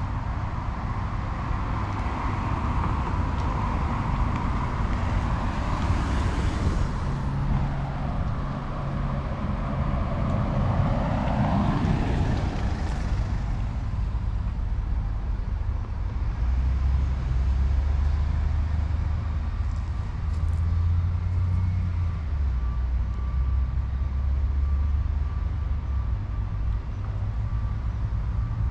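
Road traffic with a steady low rumble, and a vehicle passing about halfway through, its pitch dropping as it goes by.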